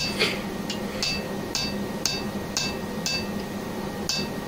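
Hand hammer striking a chisel held on red-hot wrought iron on an anvil, cutting off the stock: a steady beat of ringing metallic strikes about two a second.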